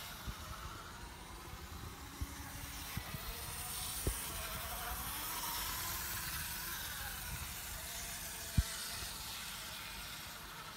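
A Märklin mini-club (Z scale) BR 89 model locomotive running around a small oval of track: a soft, steady whir from its tiny motor and wheels on the rails, with a few soft knocks, the loudest near the end.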